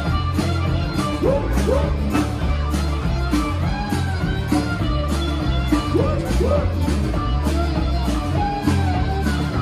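Live rock band playing amplified music: electric bass, guitars and drums with a steady beat, and a melody line over them.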